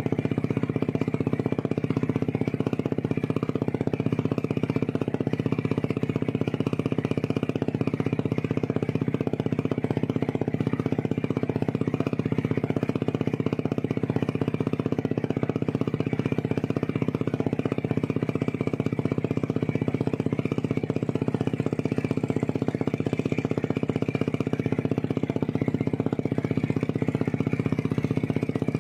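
A boat's engine running at a steady speed with an even, unchanging hum while the boat is underway.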